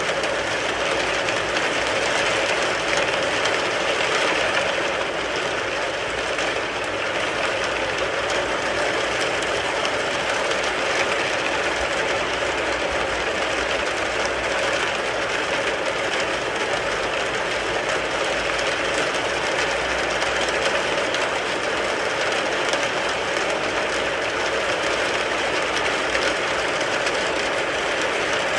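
Steady rain falling on a car, heard from inside the car as an even, dense patter with no let-up.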